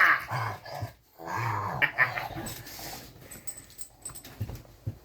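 Dog whining in drawn-out, wavering vocal moans: one at the start and a longer one from about a second in, then quieter noises.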